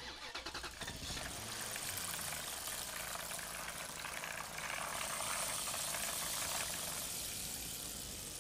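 Plastic wheels of a toy dump truck rolling and rattling over a rough concrete floor as it is pushed by hand, a steady gritty rolling noise.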